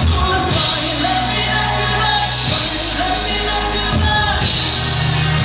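Live rock band playing: a woman singing into a microphone over electric guitar, keyboard and drums.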